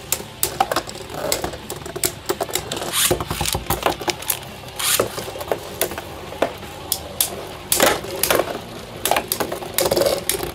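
Two Beyblade Burst tops, a 3D-printed custom bey and Venom Diabolos, spinning and clashing in a plastic stadium: a steady whir broken by rapid, irregular sharp clicks of plastic striking plastic.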